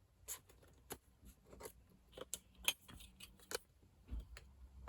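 Faint scattered clicks and taps with light rustling: paper and craft tools being handled on a work table.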